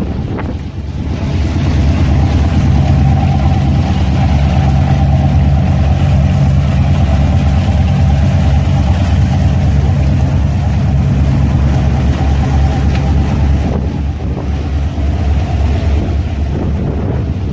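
Twin gasoline inboard engines of a 1978 Carver 28 cruiser running steadily underway, a low drone that grows louder about a second in.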